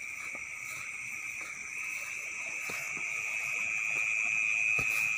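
Night chorus of insects, a steady high-pitched trill that grows louder over the last couple of seconds, with a few soft steps through wet grass.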